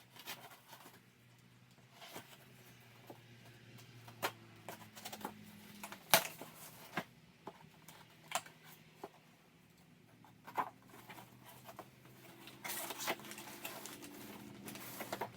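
A cardboard shipping box and its packaging being handled and opened: scattered sharp taps, clicks and short rustles, with a faint low hum.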